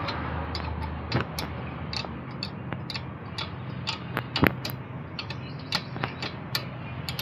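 A hand wrench working a bolt on a car's front brake caliper: a string of irregular sharp metallic clicks, about a dozen, as the bolt is tightened after new brake pads are fitted. A steady low hum runs underneath.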